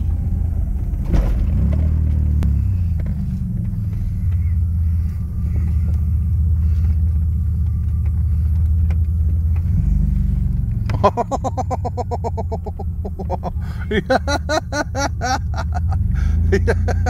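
Low, steady rumble of an off-road vehicle's engine being driven, heard from on board, its pitch stepping up and down a few times. About eleven seconds in, and again a little later, a higher, rapidly pulsing sound comes in over it.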